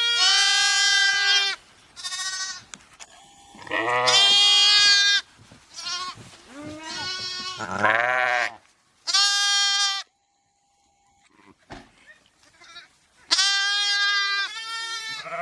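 Animal calls, repeated about every one to two seconds: drawn-out, high, pitched cries, some loud and some fainter, with a pause of about three seconds before a last loud call near the end.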